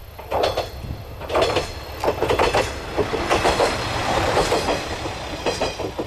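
Yuri Kogen Railway YR-3000 single-car diesel railcar passing close by: its wheels clack over the rail joints in repeated groups of clicks, loudest in the middle, over a low steady rumble.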